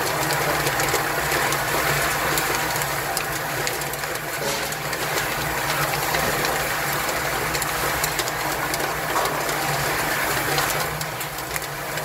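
Rotating steel drum of a guided nut-roasting machine, its inner vanes turning a load of nuts that tumble and rattle continuously against the metal, over a steady low motor hum.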